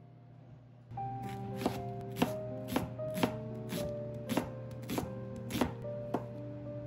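Kitchen knife chopping onion and chikuwa on a wooden cutting board. About nine sharp strokes come in a steady rhythm, roughly every 0.6 seconds, starting about a second in. Soft piano background music plays throughout.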